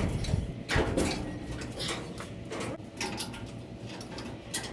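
Intermittent metal clinks, knocks and scrapes of hand tools and parts on the front radius rods and axle of a Model T hot rod, as the rods are worked to take slack out of them.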